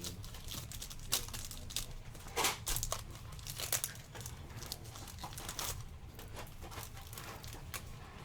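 A trading-card pack wrapper crinkling and tearing as the pack is opened, with the cards rustling, in short irregular bursts of crackle.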